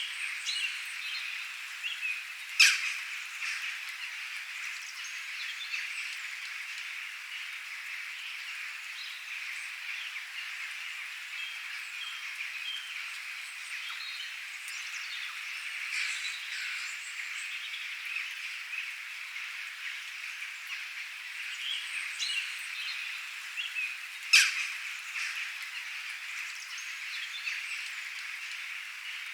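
Rain-and-birdsong ambience: a steady high hiss with short bird chirps scattered through it. Two sharp taps stand out, one a few seconds in and one near the end.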